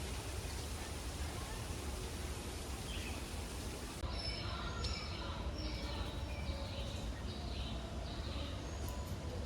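Outdoor ambience with a steady low rumble and hiss; about four seconds in, the background changes abruptly and a bird starts a run of short, repeated chirping notes, several to a few seconds.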